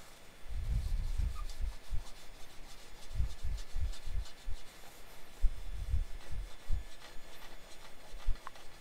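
Hand rubbing and wiping softened black acrylic paint off the glass of a mirror, a series of irregular rubbing strokes with short pauses between them.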